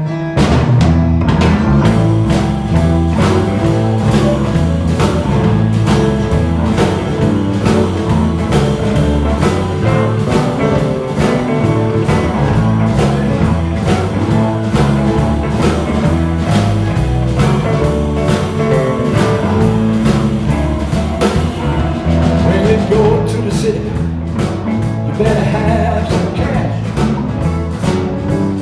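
Live blues-rock band playing an instrumental intro: electric guitars over a repeating bass line and a steady drum beat.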